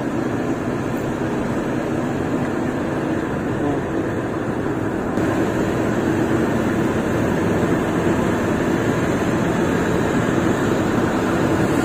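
Steady road and engine noise inside a moving car's cabin, a little louder from about five seconds in.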